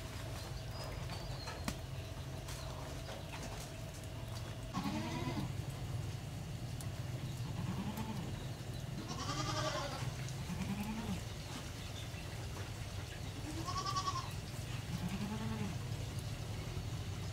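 An animal crying out in several short calls that rise and fall in pitch, starting about five seconds in, with the longest one near the middle, over a steady low hum.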